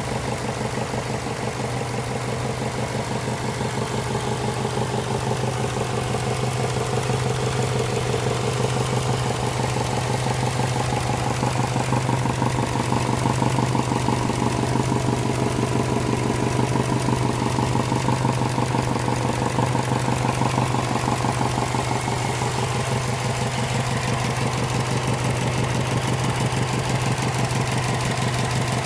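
Subaru WRX's flat-four engine idling steadily with a rhythmic knock from inside the motor.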